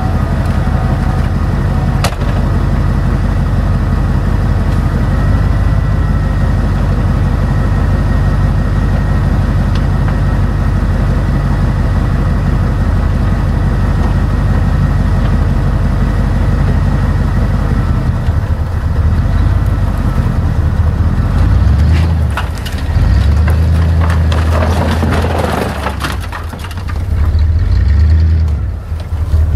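Ford F-150 pickup engine running steadily, then revving hard as the truck pulls away about twenty seconds in, with scraping and crashing as the chained culverts are dragged off the flatbed onto the ground.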